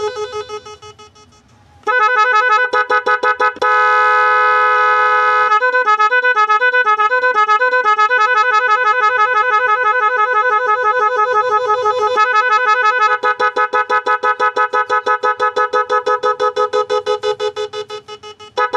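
Loud electric pressure horn sounding in a fast stutter of blasts, with one steady blast a few seconds in and stretches where it warbles back and forth between two pitches. It dies away briefly just after the start and again near the end.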